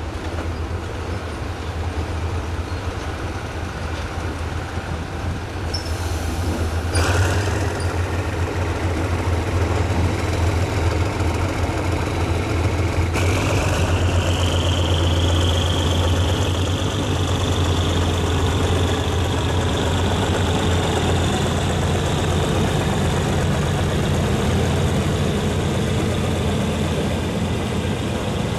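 General Electric UM12C diesel-electric locomotive, with twin diesel engines, running under load as it hauls passenger coaches past, a deep steady drone. A single clank about seven seconds in. A high squeal rises in about halfway through and then holds steady.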